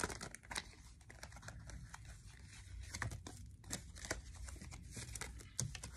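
Faint crinkling rustles and soft scattered clicks of tarot cards being handled.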